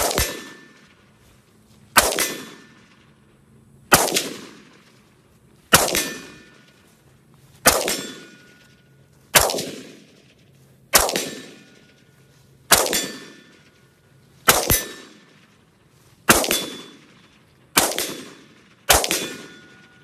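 Scoped rifle fired in slow, steady aimed shots: about a dozen, roughly one every two seconds. Each is a sharp crack followed by a tail that dies away.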